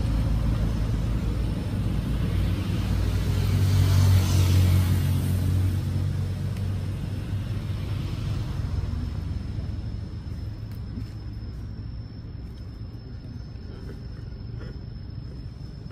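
A motor vehicle passing by: its engine hum swells to its loudest about four seconds in, then fades away over the following seconds.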